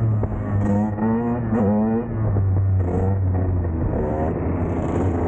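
Two-stroke dirt bike engines revving, pitch climbing and dropping back several times as the bikes accelerate through the gears.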